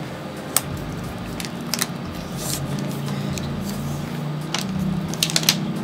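Clear protective plastic film being peeled off a smartphone. It makes a continuous crinkly rustle with a few sharp crackles and snaps, most of them near the end, over a low steady hum.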